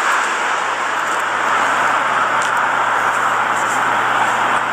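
A steady outdoor hiss of street noise, with no clear single event.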